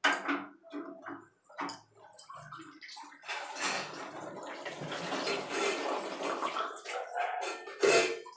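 Clicks and knocks of an adjustable spanner working the geyser's water-inlet pipe nut. From about three seconds in, a steady splashing hiss for some four seconds as water spills from the inlet connection being unscrewed. A sharp knock near the end.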